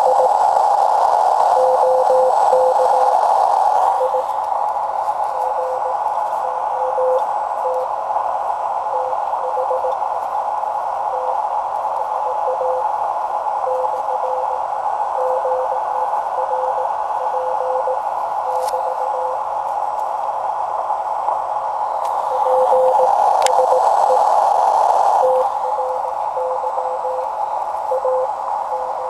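Shortwave receiver audio of a Morse code (CW) signal: a thin tone of about 500 Hz keyed in dits and dahs, sitting weakly under a steady hiss of band noise. The hiss swells louder for the first few seconds and again near the end. The code is being copied as "OK got the last, PSE try agn".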